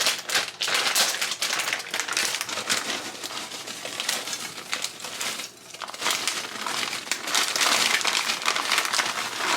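Plastic bag of frozen vegetables crinkling and rustling as it is handled and the vegetables are poured out, with a short lull about halfway through.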